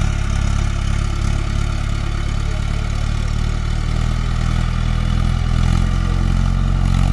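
Mahindra Arjun 555 tractor's four-cylinder diesel engine running steadily at raised throttle under heavy load, as the tractor struggles to drive itself out of deep mud.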